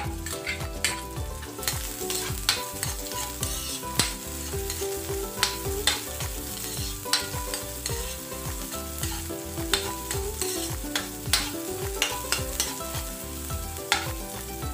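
Chopped onions and garlic sizzling in hot oil in a metal wok while a metal spatula stirs them, clacking and scraping against the pan many times at an irregular pace.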